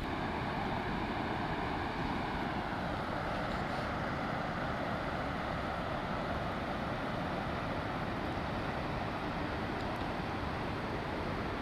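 Steady, even rush of whitewater from the Penobscot River rapids at Abol Falls.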